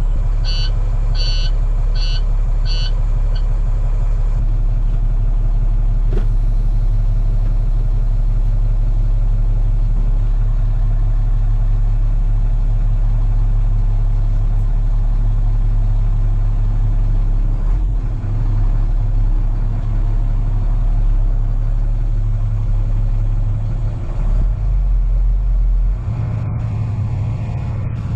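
Heavy truck's engine running steadily, with a dashboard warning beeper sounding about twice a second for the first few seconds, then stopping. The engine note changes a little past halfway and again near the end.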